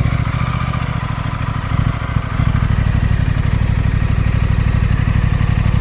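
2024 Aprilia Tuono 660 Factory's parallel-twin engine idling steadily just after a cold start, with a regular low exhaust beat that dips briefly about two seconds in.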